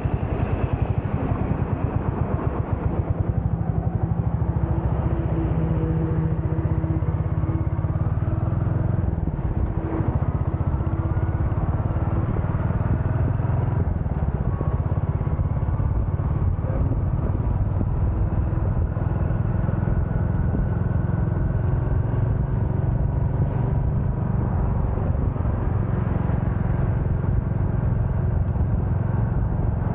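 Royal Enfield Hunter 350's single-cylinder engine running, a steady, fast, even exhaust pulse, its pitch rising and falling now and then.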